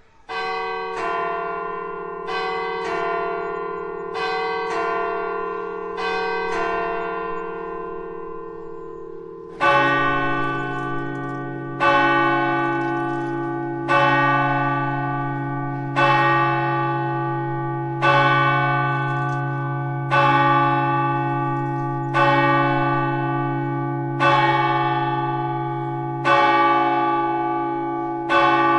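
Church bell striking the hour: a lighter bell rings eight strokes in four quick pairs, then a deeper bell tolls about every two seconds, each stroke ringing on and fading. These deeper strokes are the start of the twelve that strike noon.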